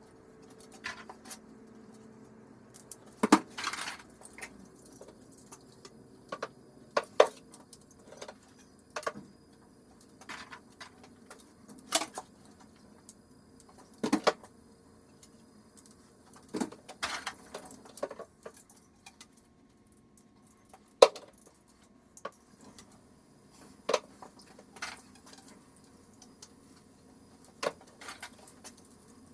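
Small hard waterer parts clinking and clattering as they are handled and dropped, in irregular sharp clicks every second or two; the loudest comes about three-quarters of the way through.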